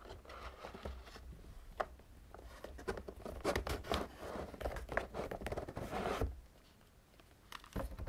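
Headphones and their coiled cable handled and lifted out of a moulded paper-pulp tray: dense rustling and scraping, heaviest from about three to six seconds in, then a couple of light knocks near the end.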